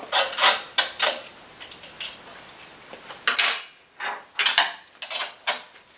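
Metal spanners clinking and rattling as they work the rear axle nut and chain tensioner of a Puch Maxi moped and are then picked out of a tool tray. It is a string of sharp clinks, with a louder clatter about three seconds in.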